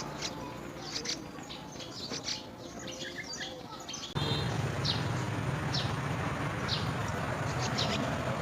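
Small birds chirping: many short, high chirps in quick succession. About four seconds in, the background noise jumps abruptly louder.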